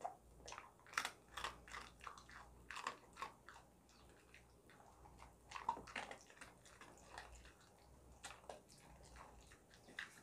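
A kelpie chewing and crunching a dog treat: faint, irregular crunches several times a second, with a short lull in the middle.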